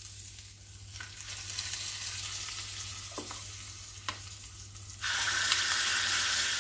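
Hot coconut-oil tempering of mustard seeds, urad dal, curry leaves and red chilli sizzling steadily, with a couple of light knocks. About five seconds in the sizzle jumps suddenly louder as the hot tempering is poured onto the coconut chutney.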